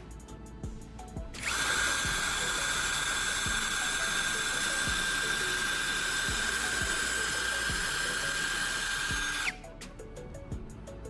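Electric drill running steadily with a high motor whine for about eight seconds, boring angled holes into a block of wood, starting about a second and a half in and stopping near the end. Soft background music plays under it.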